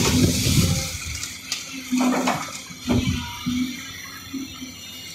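Crusher-run stone pouring from a Volvo EC350DL excavator's bucket into a dump truck bed, a rushing noise that dies away after about a second. The excavator then runs on with short, repeated whines from its hydraulics and a couple of knocks as the empty bucket swings away.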